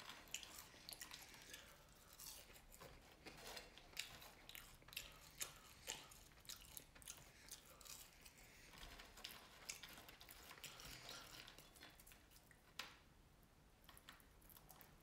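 Close-up chewing and crunching of fried catfish nuggets and french fries: many small crisp crunches and wet mouth clicks, dense through the first half and thinning out near the end.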